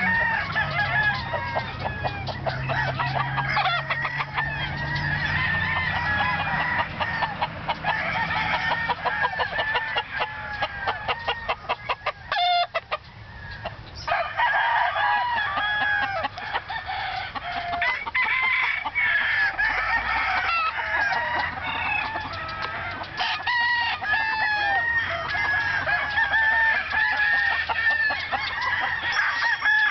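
Many roosters crowing and clucking at once, calls overlapping without a break, with a brief lull about thirteen seconds in.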